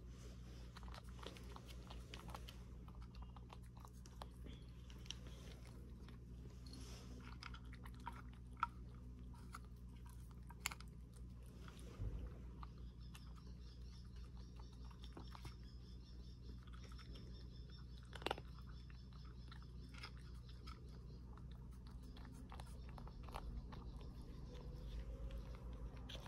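A cat eating dry kibble, with small faint crunches scattered throughout and a few sharper crunches, over a steady low hum.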